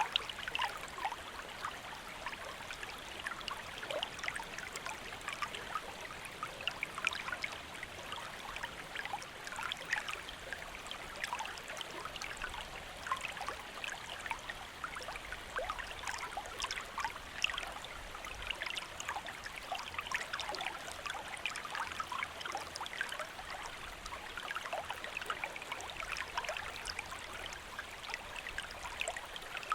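Shallow stream flowing steadily over stones, a continuous babble with many small splashes and trickles.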